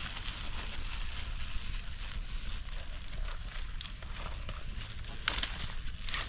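Close handling noise: a plastic bag rustling as its neck is twisted shut, then leaves and twigs rustling, with two sharp cracks near the end. A steady high-pitched hiss runs underneath.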